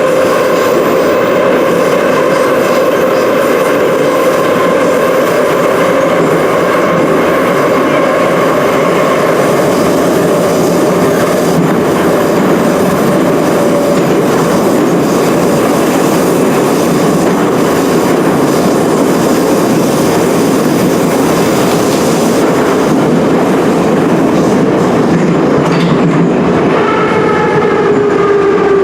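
Ezh3/Em-508T metro train running between stations: loud, continuous rumble of wheels on rails with a steady traction-motor whine that slowly falls in pitch. A couple of seconds before the end, a new set of whining tones starts and glides downward as the train slows.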